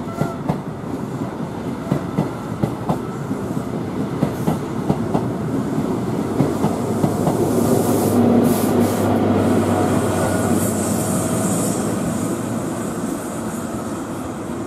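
Greater Anglia passenger train of Mk3 coaches running over pointwork and rail joints, wheels clicking sharply and irregularly, then its Class 90 electric locomotive passing with a steady low hum. It builds to its loudest about eight seconds in and then slowly fades.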